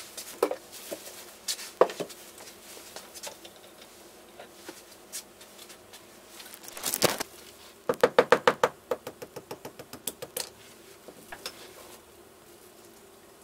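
Hands handling objects at a resin 3D printer and workbench: scattered clicks and knocks, a short scraping rush about halfway through, then a quick run of about ten sharp clicks.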